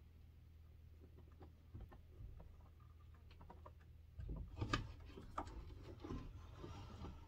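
Faint handling noise of a plastic-bodied chainsaw being turned around on a wooden workbench: a few light clicks, then about four seconds in a cluster of knocks and clicks, over a low steady hum.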